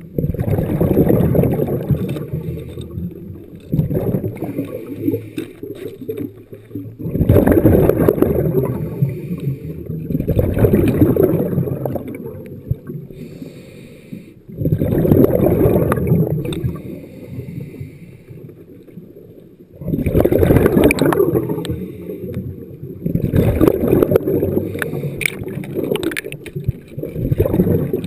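Scuba diver's exhaled bubbles rumbling out of the regulator, heard underwater: a burst of about one to two seconds every three to four seconds with each breath, about eight in all.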